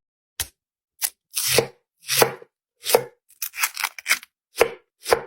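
Knife chopping food on a cutting board: single strokes about every two thirds of a second, with a quick run of lighter cuts midway.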